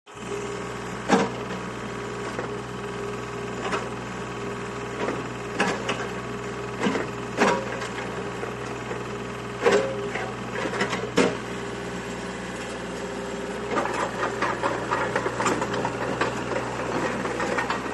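Komatsu PC35MR mini excavator running steadily, with a series of sharp clunks in the first half as the boom and bucket are moved. From about two-thirds of the way in, a busier, rattling sound takes over.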